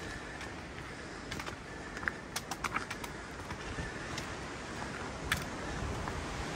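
Hiking footsteps on a rocky dirt trail: irregular sharp clicks and scuffs, clustered about two and a half seconds in, over a steady hiss of wind.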